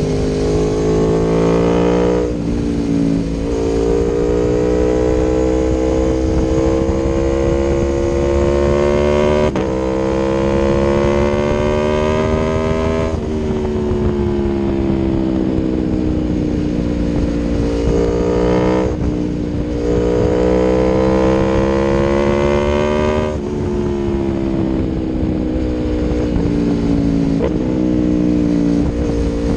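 Aprilia Tuono V4 1100's V4 engine through an Akrapovic exhaust under way, its pitch climbing steadily as it pulls, dropping sharply at gear changes a few times, and sliding slowly down while it eases off.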